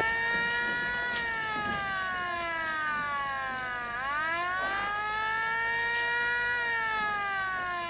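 Wailing alarm siren, its pitch rising and falling slowly, one full rise and fall about every five and a half seconds.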